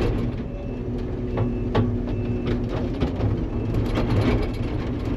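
Diesel engine of heavy log-handling equipment running steadily, with a few sharp knocks about a second and a half in.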